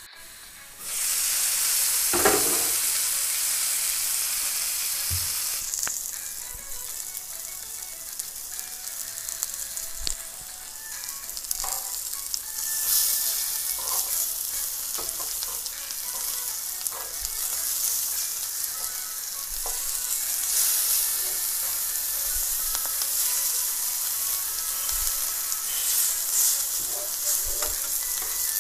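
Tomato halves filled with egg batter frying in a pan, sizzling steadily from about a second in, while a spatula scrapes and knocks against the pan as the halves are turned over.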